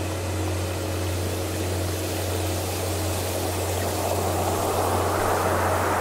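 Ocean waves washing in, the surf hiss swelling toward the end, over a steady low hum. A Tibetan singing bowl's ringing tone fades away during the first half.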